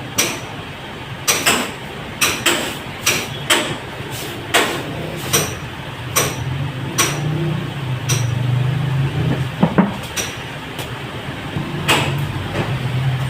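Irregular sharp knocks and clacks of hard objects being handled while cleaning, about one a second, over a low steady hum.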